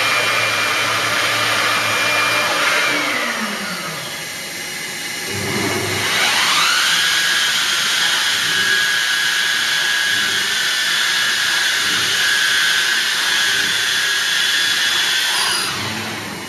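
1995 Busellato Supereasy CNC router running with its axes moving: a steady rushing machine noise with a whine. The whine slides down about three seconds in and climbs steeply again a few seconds later. It then holds steady until it drops away near the end.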